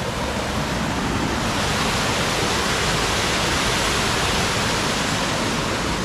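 Small waterfall pouring down a brick-walled channel: a loud, steady rush of falling water.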